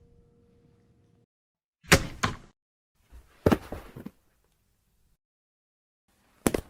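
Body-fall sound effects, a run of separate heavy thuds: one fall landing with two quick hits about two seconds in, another with several rapid impacts around three and a half seconds, and a short double thud near the end.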